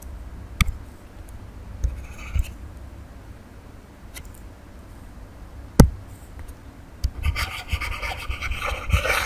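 Stylus scratching across a writing tablet as handwriting is written, starting about seven seconds in. Before that come a few scattered clicks and taps, the loudest a sharp knock near the middle.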